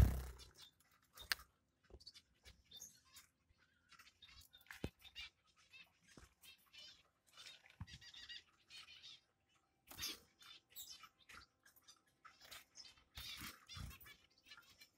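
Finches chirping in their cages: scattered short, high cheeps, some coming in quick runs, over faint rustling and clicks. A loud knock comes right at the start.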